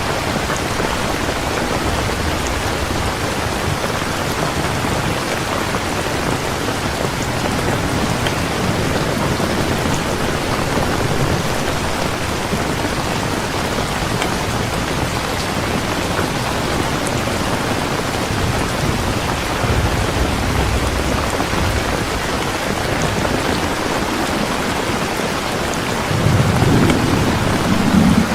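Steady, heavy rain falling, with low thunder rumbling now and then; the strongest rumble comes near the end.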